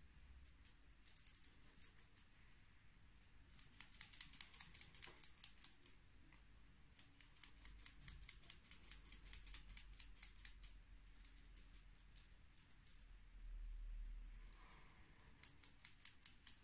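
Small makeup brush sweeping powder blush onto the cheek: faint bursts of quick, soft, scratchy bristle strokes, several a second, with pauses between the bursts. A brief low rumble near the end.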